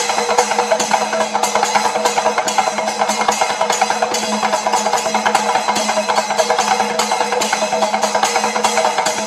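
Panchavadyam temple percussion: thimila hourglass drums struck by hand in fast, dense strokes, with ilathalam hand cymbals clashing along, in the thimila edachil passage. The rhythm runs unbroken and even in loudness over a steady low tone.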